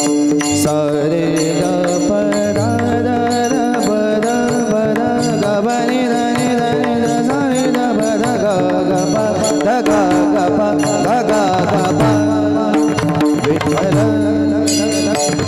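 Devotional kirtan music: a wavering melody over a steady held drone, with a drum and small hand cymbals keeping a regular beat.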